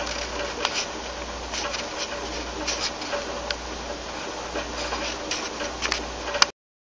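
Steady room noise with hiss and a low hum, broken by scattered small clicks and ticks, cutting off abruptly near the end.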